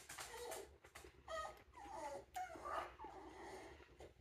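A dog whining softly, a string of short whimpers that rise and fall in pitch.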